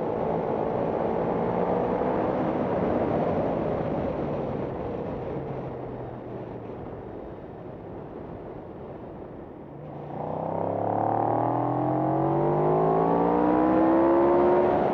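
Racing motorcycle engine heard from on board. Its pitch falls and it grows quieter through the first half as the bike slows. Then, about ten seconds in, the revs climb steadily under hard acceleration.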